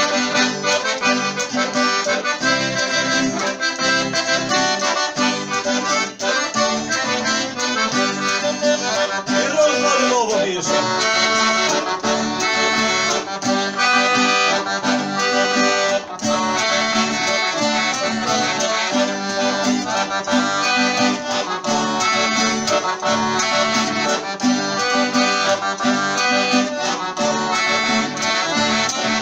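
Accordion playing an instrumental break of a bugio, the southern Brazilian gaúcho dance rhythm: full chords and melody throughout, with a falling slide about ten seconds in.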